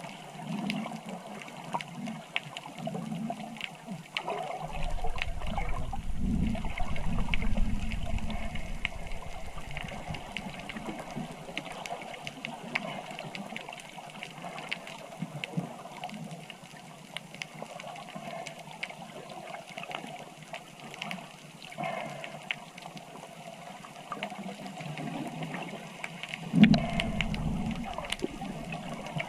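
Rushing, trickling water, with a deep low rumble swelling about five seconds in and again near the end.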